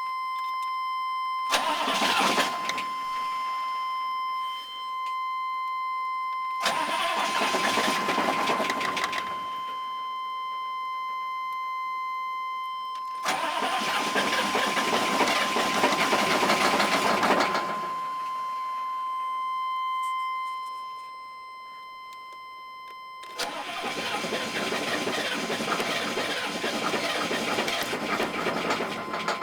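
6.5 L diesel in a K3500 pickup being cranked on the starter in four separate bursts, short at first and longer later, without catching and running. A steady high tone sounds throughout.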